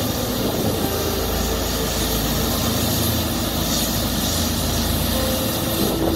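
Combine harvester running at work: a steady mechanical rumble and hum, with a few faint steady tones that come and go.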